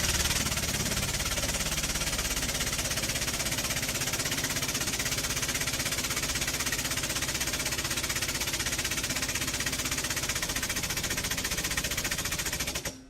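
A power tool or machine running loud and steady with a very fast rattle and a strong hiss, cutting off suddenly near the end.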